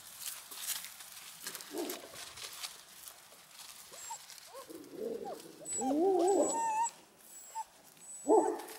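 Central Asian Shepherd puppies whining and yelping in wavering, rising and falling calls, loudest about five to seven seconds in, with another short yelp near the end.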